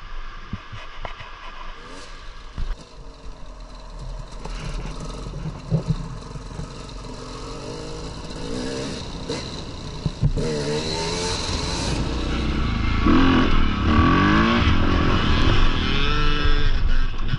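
Off-road motorcycle engine revving up and down under changing throttle, with knocks and clatter along the way. It gets louder about ten seconds in.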